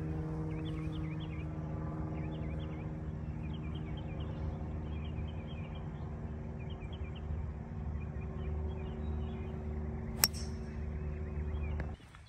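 Golf cart running with a steady motor hum while birds chirp. A single sharp click comes about ten seconds in, and the hum cuts off suddenly near the end.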